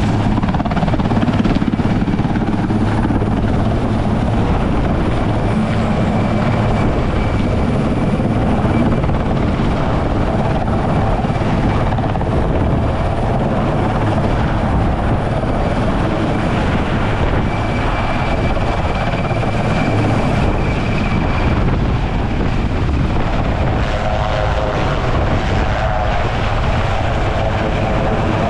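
RAF Puma twin-turbine helicopter running steadily, rotor and engines together, with a steady high turbine whine over a low hum.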